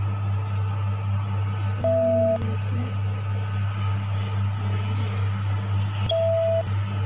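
Convection oven running with a steady low hum. Two short electronic beeps come about four seconds apart.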